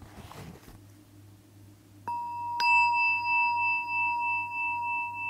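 Meditation bell struck twice about half a second apart, about two seconds in, then ringing on with a slow waver. A brief soft rustle comes just before.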